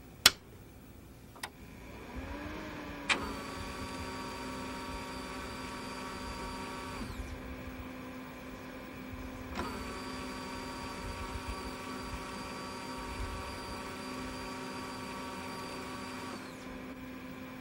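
Apple LaserWriter Pro laser printer switched on with a sharp click, running its power-on diagnostic self-test. A steady hum rises up and holds, and the print engine's motors run with a whirring whine in two spells, one of about four seconds and one of about seven, each cutting off sharply.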